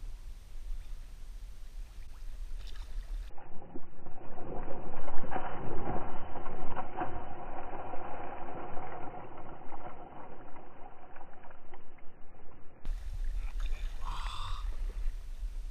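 Water splashing and churning as a pike strikes a lure right beside a float tube, loudest a few seconds in. The middle stretch sounds dull and muffled, with the high end cut off, and a short pitched sound comes near the end.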